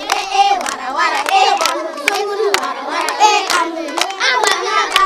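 A group of children singing together and clapping their hands along with the song.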